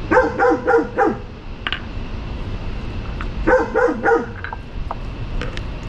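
A dog barking: a quick run of about four barks right at the start, then another run of about four barks a few seconds later.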